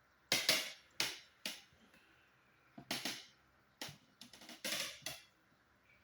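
A sleeping pet snoring in short, sharp snorts, about six of them at uneven spacing, the last few close together near the end.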